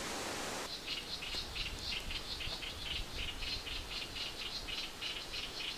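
An animal chirping: an even run of short, high chirps, about four a second, starting just under a second in, when a steady rushing hiss cuts off.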